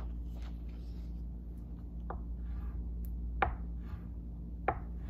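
Crayon strokes scratching on paper laid on a tabletop, with three sharp taps about a second and a quarter apart from near the middle on, over a steady low hum.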